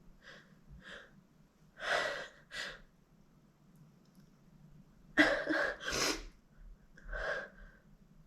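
A woman's hitching, gasping breaths building up to sneezes, with the loudest, sudden sneeze about five seconds in and a smaller one near the end.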